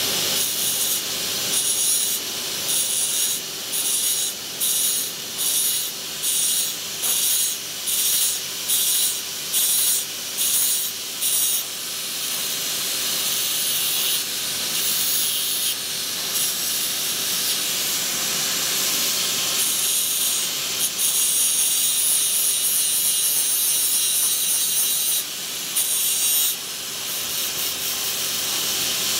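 Angle grinder grinding the metal card clothing wire wound on a carding cylinder, a harsh high-pitched grinding. For the first ten seconds or so it comes in short passes about once a second, then it runs on steadily with a couple of brief breaks.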